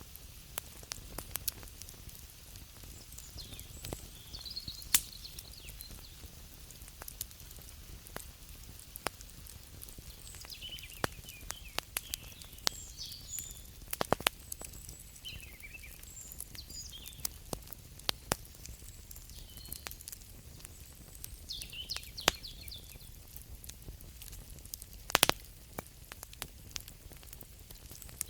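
Campfire crackling, with irregular sharp pops over a low steady rumble; the loudest pops come about 5, 14 and 25 seconds in. Faint high chirping calls come and go in the background.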